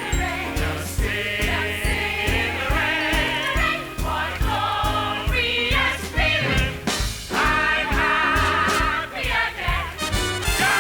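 Show-tune music from the musical's score: an orchestra with a steady bass beat and a group of voices singing.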